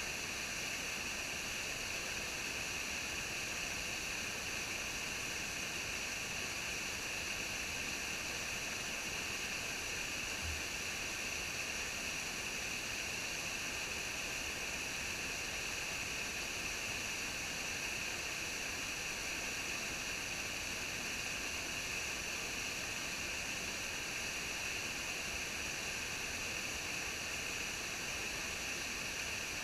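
Trickling water: a steady, even hiss that does not change.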